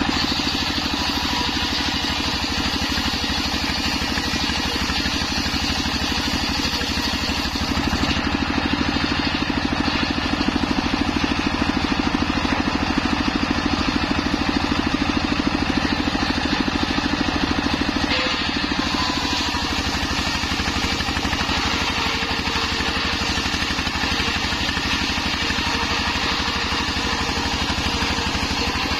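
Horizontal single-cylinder diesel engine running steadily, belt-driving a circular saw blade. The blade cuts through sea hibiscus (waru) wood at times.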